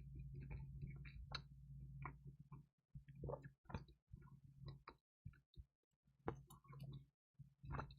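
Faint, close-miked eating sounds of pizza: scattered small clicks, crunches and soft wet squishes of chewing, over a steady low hum that drops out several times.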